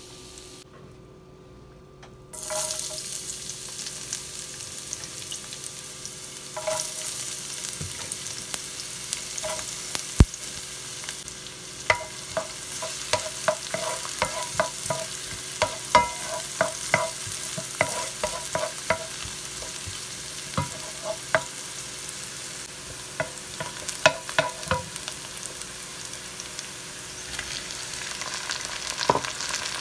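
Chopped onions and garlic sizzling in hot oil in a pan, starting after a short silent gap near the start. A wooden spatula stirs them, clicking and scraping against the pan many times through the middle of the clip.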